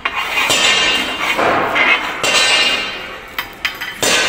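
A steel plate struck sharply about four times, at the start, about half a second in, a little past two seconds and near the end. Each strike rings on with a bright metallic tone that dies away over a second or so.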